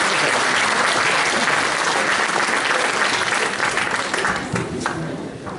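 Audience applause: many hands clapping together, dying away near the end.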